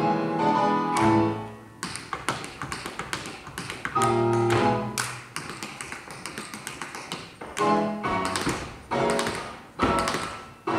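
Tap dancing: fast runs of tap-shoe clicks on a tabletop, broken up by short chords of band music near the start, about four seconds in and again near eight seconds.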